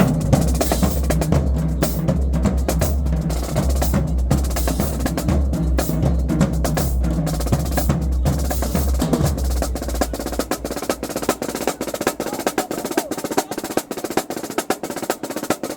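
High school marching drumline playing a fast cadence, snare drums over bass drums. About ten seconds in the bass drums drop out, leaving rapid snare strokes alone.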